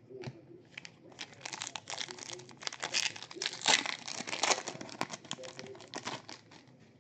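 A trading-card pack's foil wrapper being torn open and crinkled: a dense run of crackles for about five seconds that starts about a second in.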